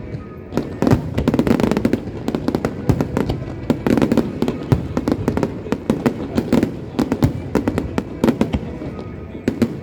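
Aerial fireworks going off in quick succession: many sharp bangs and crackles overlapping, with no pause.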